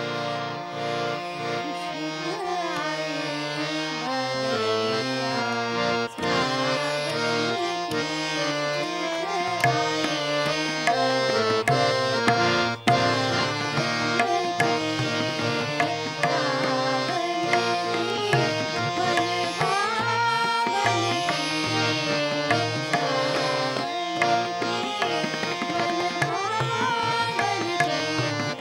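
Indian classical music on a plucked veena, its melody sliding between notes over steady held tones, with tabla drums keeping time.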